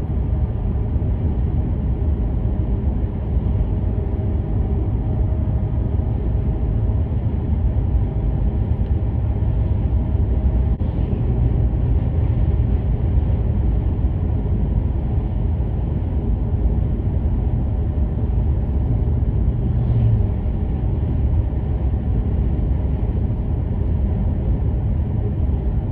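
Steady low rumble of road and engine noise inside a moving car, with no clear changes.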